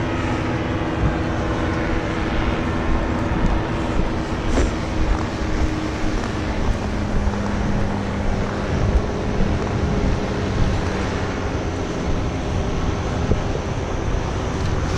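Paramotor engine running steadily under rumbling wind noise on the microphone; its tone drops to a lower steady pitch about six or seven seconds in.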